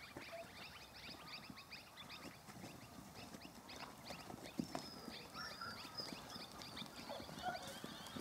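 Outdoor yard ambience of many small birds chirping continuously in quick short notes, with faint scuffs and knocks of movement on dirt.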